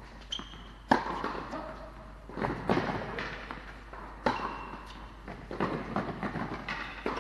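Tennis rally on an indoor court: a series of sharp racket strikes on the ball and ball bounces, one every second or two, each echoing in a large hall.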